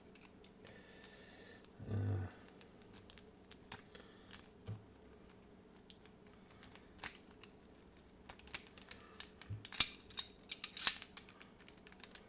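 Key working an Anchor Las padlock's 11-disc disc detainer core: scattered small metallic clicks, growing denser and sharper near the end as the discs turn and the lock opens. A dull thump about two seconds in.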